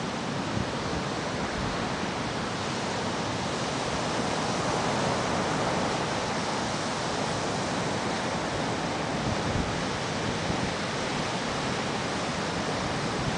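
Steady wash of ocean surf on a beach, an even hiss that swells slightly midway, with a few soft low bumps of wind on the microphone.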